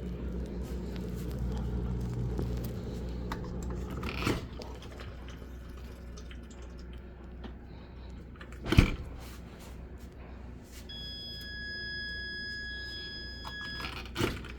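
ASKO dishwasher running with water sloshing inside and a low hum that eases after about four seconds. Three sharp knocks, the loudest about nine seconds in, and a steady high tone lasting about three seconds near the end.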